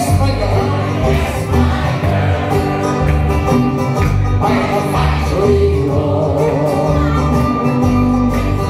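A live Irish folk band playing a song, with strummed acoustic guitar, tenor banjo, electric guitar, bass and fiddle. The music holds a steady beat, with singing over it and a tin whistle coming in near the end.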